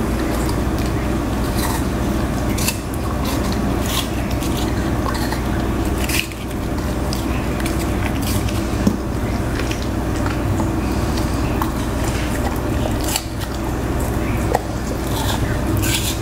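Siberian husky eating a piece of green apple: wet squishy bites with scattered sharp, crisp crunches, over a steady low hum.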